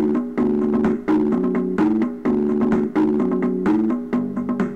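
Background music: a tune of short, repeated pitched notes over a steady beat.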